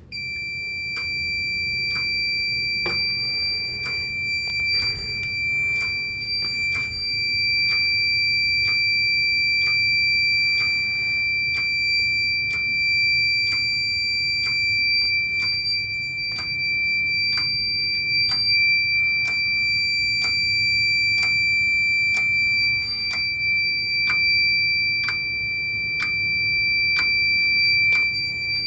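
Fire alarm panel's built-in piezo sounder giving one continuous high-pitched tone, sounding because a manual pull station has put the panel into alarm. Regular ticks come about one and a half times a second throughout.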